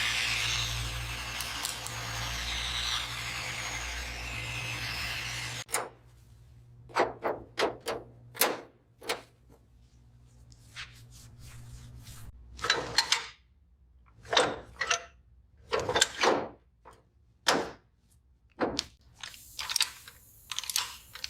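A power tool runs steadily with a low hum, then cuts off abruptly about six seconds in, followed by a string of irregular knocks and clunks of things being handled in a workshop.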